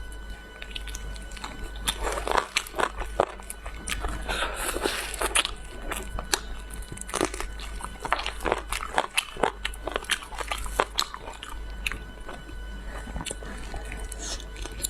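A person biting into and chewing crunchy food close to the microphone, with frequent irregular crunches.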